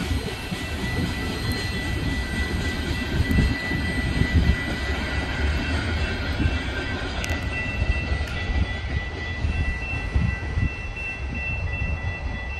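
BNSF freight train of tank cars rolling by, a steady low rumble of wheels on rail with a thin, steady high tone over it.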